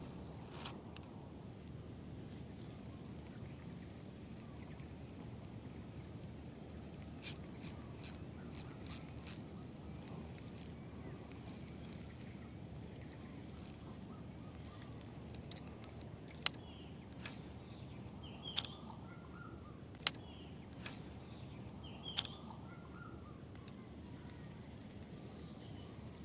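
Steady high-pitched insect chorus, with a quick run of six sharp clicks about seven seconds in and a few single clicks later.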